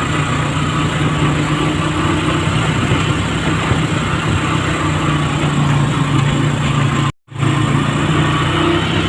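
Steady running of a motor vehicle's engine at cruising speed, with wind and road noise. The sound drops out completely for a moment about seven seconds in.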